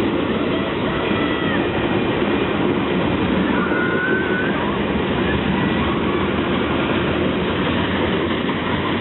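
A train rolling past on the rails, a steady loud rumble of wheels on track, with a few faint high squeals near the middle.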